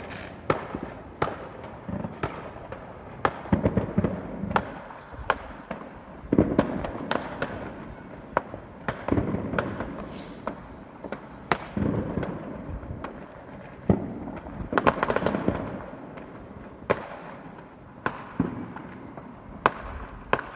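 Fireworks going off in a continuous, irregular string of sharp bangs and cracks, one every half second to a second, with thicker clusters of crackling bangs.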